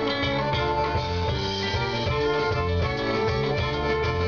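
Live band playing an instrumental passage between sung verses: electric guitar over a steady rhythmic low line, with a soprano saxophone holding a long note in the first half.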